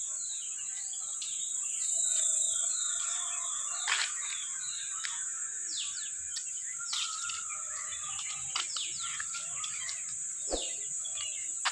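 Dawn chorus of small birds chirping and calling in short sweeping notes over a steady high-pitched insect drone. Two brief knocks, about four seconds in and near the end.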